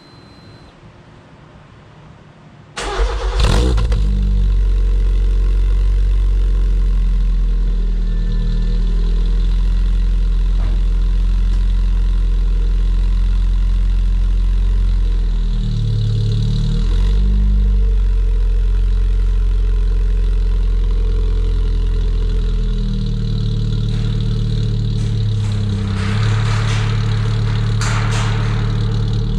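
Cold start of a 2008 Suzuki Swift's 1.5-litre M15A four-cylinder through an SLR exhaust manifold and HKS mid and end pipes: the engine catches suddenly about three seconds in and settles into a steady, loud idle. The pitch shifts briefly twice, around the middle and again near the end.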